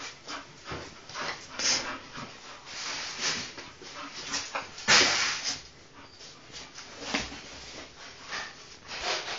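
Young English Bull Terrier making a string of short, irregular breathy sounds, the loudest about five seconds in.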